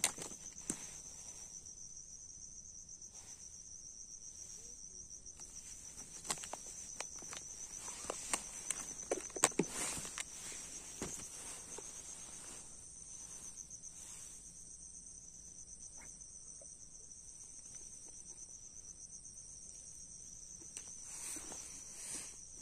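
Steady high-pitched chirring of insects in the waterside grass. Short clicks and rustles of fishing tackle being handled come mostly in the middle.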